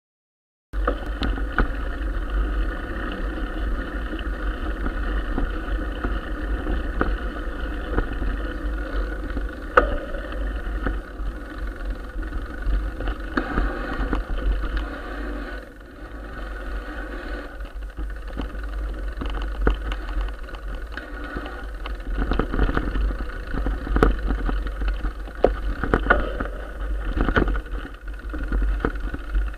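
Mountain bike ridden over a dirt trail, heard through a moving camera's microphone: steady wind rumble and tyre-and-frame rattle, with occasional sharp knocks as the bike hits bumps. It starts abruptly about a second in.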